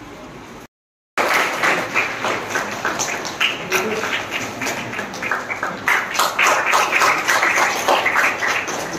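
Audience clapping: a dense, uneven patter of many hands that starts abruptly after a short silence about a second in and keeps going.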